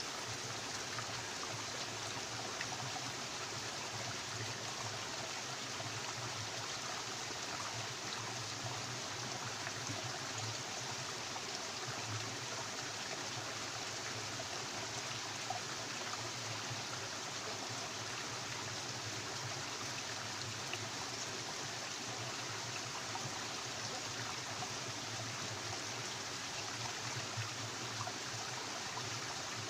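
Steady rush of flowing stream water, even and unbroken throughout.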